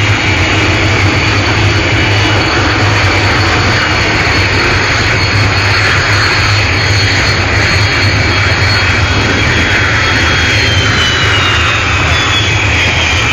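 Jet engines of several small jet trainers running on the ground, a loud, steady whine over a low rumble, with one high tone falling in pitch over the last few seconds.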